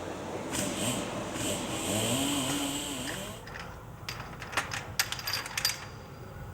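Power tapping tool cutting threads into stay-bolt holes in a steel firebox sheet, its motor running with a wavering pitch under load for about three seconds. It stops, and a string of sharp metallic clicks and knocks follows.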